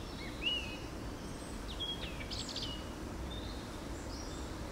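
Songbirds chirping over a steady low outdoor rumble: a couple of short rising-falling chirps about half a second in, and a brief flurry of higher notes around two seconds in.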